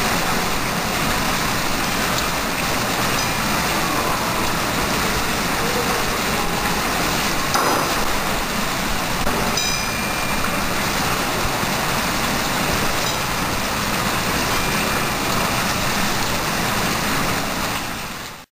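Water from a mall water clock's fountain jets splashing steadily into its pool, with one short knock about halfway through. The sound fades out near the end.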